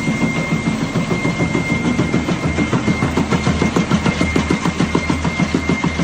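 Log debarking machine running, a rapid even clatter of many pulses a second under a steady high whine.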